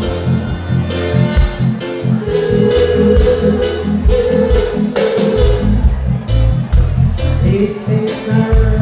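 A band playing music with a steady beat: a heavy bass line, drums and a sustained melody on top, with guitar.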